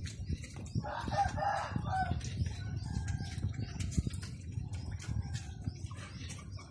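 Pigs feeding in a pen, with many scattered chewing clicks and knocks. A short animal call sounds about a second in.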